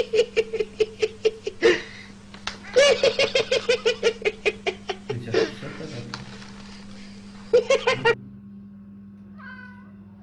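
Rapid, high-pitched laughter in three bouts, about five or six laughs a second, with a sharp in-breath between the first two. Near the end there is a short, faint meow.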